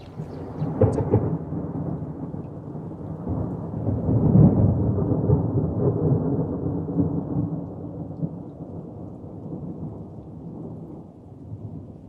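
Low rolling thunder from the storm, swelling to its loudest about four seconds in and slowly dying away.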